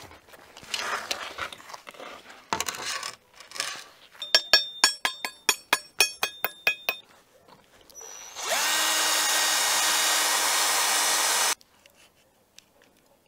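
A metal baking tray scraping as it is drawn out of a wood-fired oven, then a hand tool tapping sharply on a hard baked salt crust, about five ringing taps a second. Later a loud, steady mechanical whir runs for about three seconds and cuts off suddenly.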